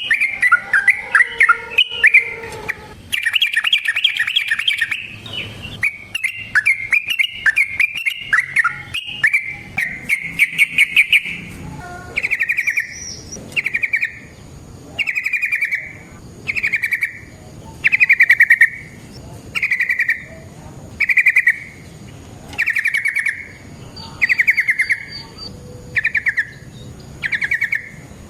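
Yellow-vented bulbul (trucukan) singing: fast, dense chattering trills for roughly the first ten seconds, then a string of short rattling phrases that dip slightly in pitch, repeated about every second and a half.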